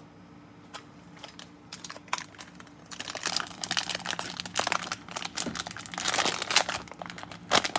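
A trading-card pack wrapper crinkling as it is torn open and handled. A few light clicks come first, and steady crinkling starts about three seconds in.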